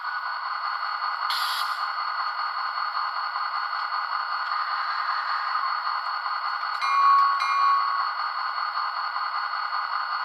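HO-scale EMD GT26CW diesel model's onboard sound playing a diesel engine idling through a small speaker, a steady rattly running sound with no bass. A short hiss comes about a second in, and two short tones a little after the middle.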